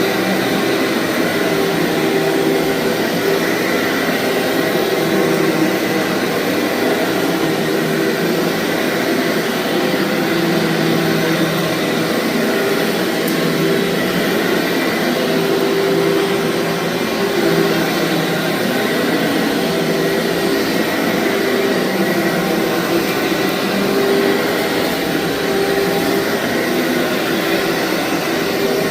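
Vacuum cleaner running steadily as it is pushed over a deep-pile, fluffy carpet: a continuous motor hum with a high, even whine.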